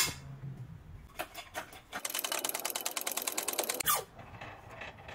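A steel sheet knocks down onto the steel bed of a metal press. A few clicks follow, then a rapid, even mechanical clatter for about two seconds while the press works. The clatter ends in a short falling squeal.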